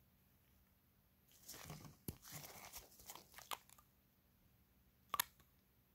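Disposable gloves crinkling and a gel polish bottle's cap being twisted off, a run of small crackles, scrapes and clicks lasting about two and a half seconds, then a single sharp click near the end.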